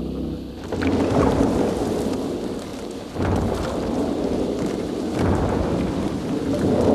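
Deep rumbling noise that starts about a second in and swells again roughly every two seconds, four surges in all.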